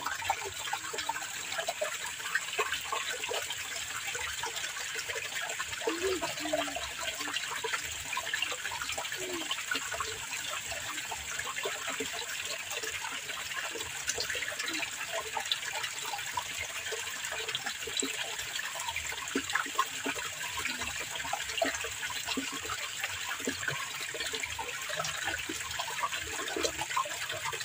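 Water of an irrigation channel flowing and trickling steadily.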